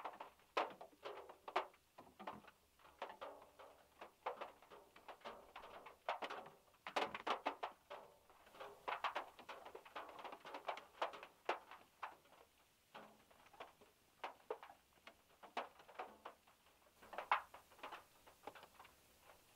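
Irregular taps of raindrops and drips hitting the VW Beetle's metal roof, several a second and uneven in strength, heard from inside the small car.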